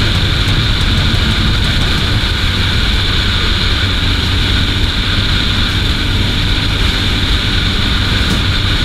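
Rusi Gamma 200cc motorcycle's engine running at a steady cruising speed, with wind rushing over the camera microphone.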